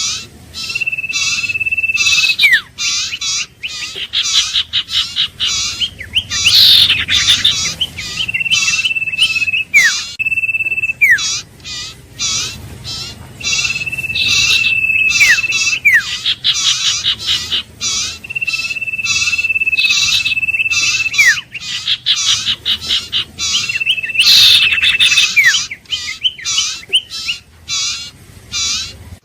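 Iora repeating a long, steady whistle held for about two seconds that ends in a quick downward slur, about five times. Under it runs a dense, fast series of short chirping notes.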